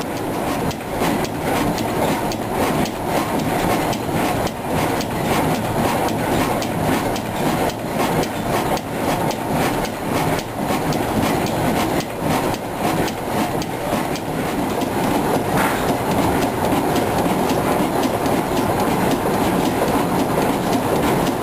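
Crossley O-117 horizontal stationary diesel engine running steadily, with an even, rapid beat of knocks from its working stroke and valve gear.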